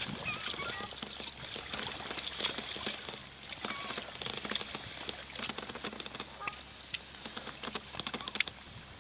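Kayak paddle strokes: water dripping and splashing off the blades, a loose run of small clicks and patters. Faint bird calls sound a few times in the distance.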